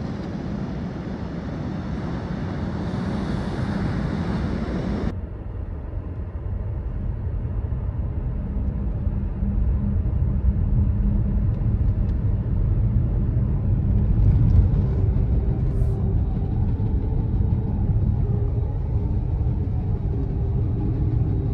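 A car driving on the road with a steady low rumble of engine and tyre noise. It is preceded by a few seconds of rushing noise that cuts off abruptly about five seconds in.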